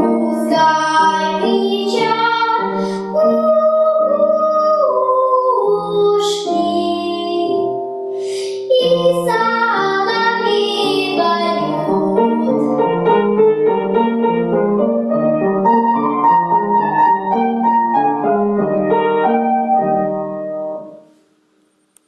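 A young girl singing with upright piano accompaniment. Her voice stops about halfway through and the piano plays on alone, dying away near the end.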